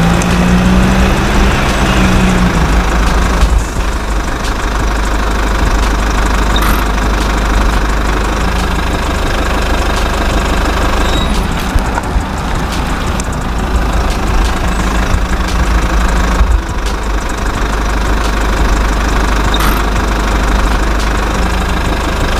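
Steady engine-like running, loud and even, with a rough knocking texture; a short pitched tone sounds for the first two seconds or so.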